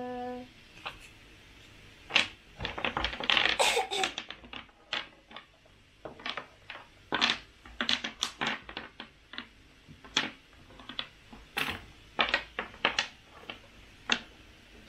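Small plastic game blocks clacking and rattling as they are quickly turned and set down on a table, a dense run of irregular clicks and knocks.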